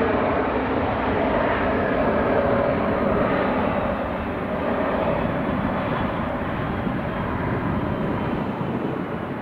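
Jet noise from an Airbus A321 airliner's twin turbofan engines, a steady roar that fades a little after about four seconds.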